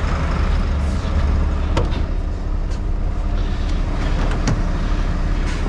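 Heavy truck's diesel engine idling steadily with a low rumble, with a light click a little under two seconds in and another about four and a half seconds in.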